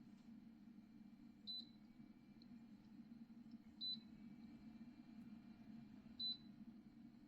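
Three short, high-pitched electronic double beeps about two and a half seconds apart, over a faint low steady hum.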